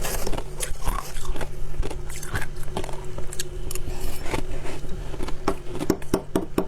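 Close-up biting and chewing of soft white ice or freezer frost: a rapid, irregular run of crisp crunches.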